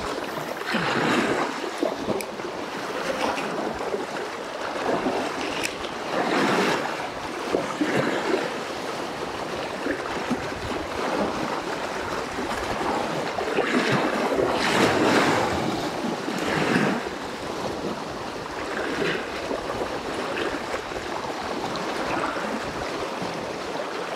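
Small waves washing and lapping over a rocky shoreline, surging irregularly every few seconds, with wind gusting on the microphone.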